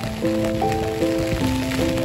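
Gentle instrumental background music: a slow melody of overlapping held notes, over a steady hiss of rain.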